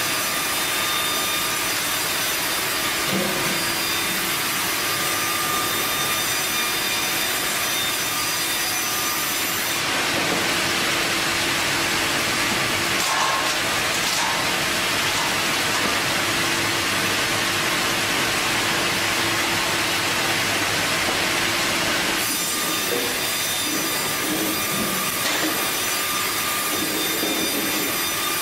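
Sawmill machinery sawing a log as it is fed through the cutting line: a steady noise of blades cutting wood. The cutting grows brighter and harsher from about a third of the way in until about three quarters through, with a faint steady hum of the machinery underneath.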